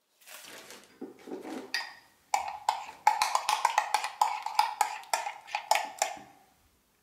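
A metal spoon scraping and knocking inside a ceramic mug. From about two and a half seconds in it comes as a quick run of knocks, several a second, each with a short ring, after a softer scraping.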